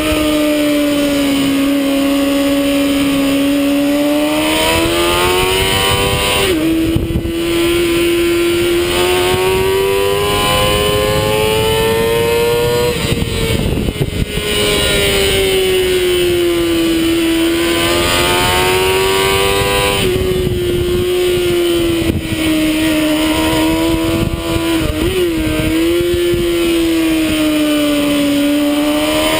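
Sport motorcycle engine running hard at high revs on track, its pitch rising and falling as the bike accelerates and slows through the corners, with quick dips at gear changes about 7 and 25 seconds in, over a steady rushing noise.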